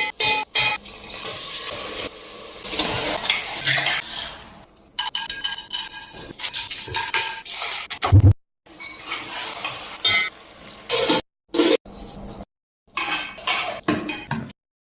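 A metal spoon clinking and scraping in a cooking pot as food is stirred, with some sizzling. The sound cuts off abruptly several times between short clips.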